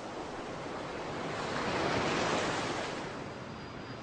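A soft rushing sound that swells to a peak about two seconds in and then fades again.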